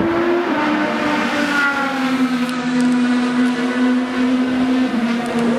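Race car engine running at high revs on the circuit: a steady engine note that slides down a little in pitch over the first couple of seconds, then holds.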